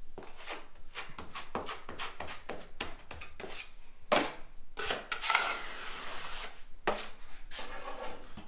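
Steel drywall knife scraping quick-set joint compound off a wall corner in a quick series of short strokes, with a longer scrape a little past the middle.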